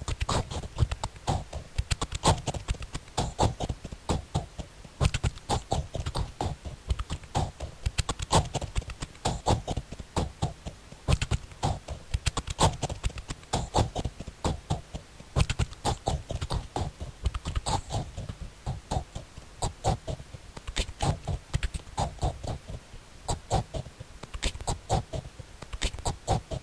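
Electronic noisecore track built from rapid, chopped fragments of distorted funny voices: a continuous stutter of short bursts, several a second, with heavy bass under them and no pauses.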